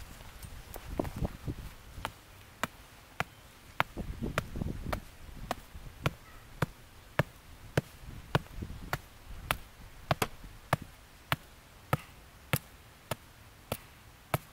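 Sharp clicks at a very even pace, a little under two a second, with a few dull low thumps or rumbles in between.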